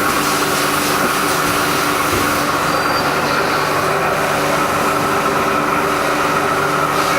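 Haas EC-400PP CNC horizontal mill running, a steady mechanical noise with several steady whining tones held throughout.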